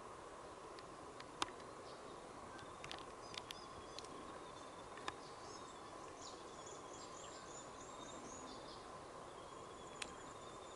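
Quiet bush ambience: a steady hiss, with a bird calling a quick run of high chirps about halfway through and a few single sharp clicks.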